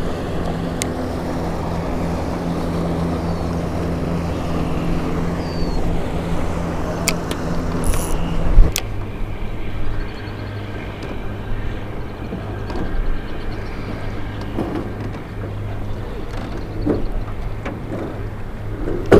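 Motorboat engine running steadily, its note changing about two-thirds of the way through, with a few sharp clicks.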